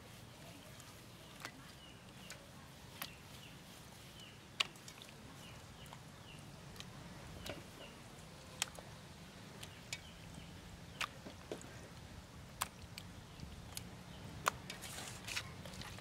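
Skinned field mice handled on a stainless steel tray: sharp little taps and clicks every second or so as the carcasses are set down and moved on the metal, over a faint background with small high chirps.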